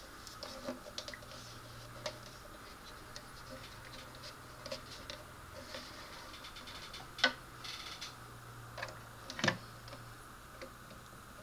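Plastic AMT Star Trek starship model being handled and turned in the hand: scattered light clicks, taps and rubs of plastic, with two sharper clicks a little past halfway and about two seconds later.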